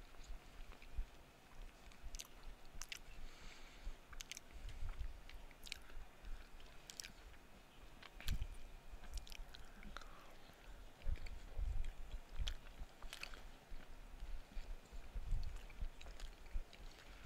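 Close-miked chewing of a mouthful of Philly cheesesteak casserole: soft, irregular chewing with scattered light clicks.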